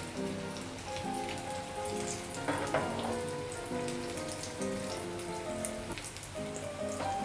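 Potato-stuffed bread rolls deep-frying in hot oil, a steady crackling sizzle of bubbling oil, partway through frying as the rolls turn light brown; the sizzle flares briefly about two and a half seconds in. Soft instrumental background music plays under it.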